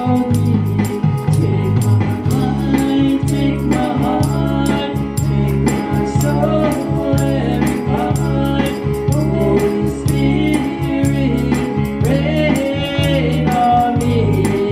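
A woman singing a slow gospel song through a microphone and PA, over a band accompaniment with a steady bass line and a light rattling percussion beat.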